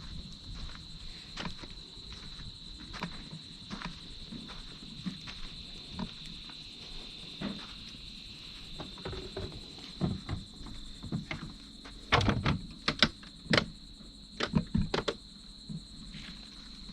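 Night insects calling in a steady high trill, with scattered knocks and clatter that grow louder and more frequent from about ten seconds in.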